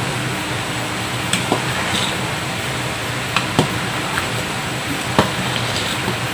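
Metal ladle stirring thick, bubbling chocolate rice porridge (champorado) in a steel pot. It knocks sharply against the pot a handful of times, over a steady hiss.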